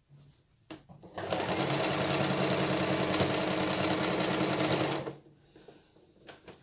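Electronic sewing machine stitching a seam through layered cotton cushion-cover fabric. It starts about a second in, runs fast and steady with a rapid needle rhythm over a motor hum, and stops abruptly about four seconds later.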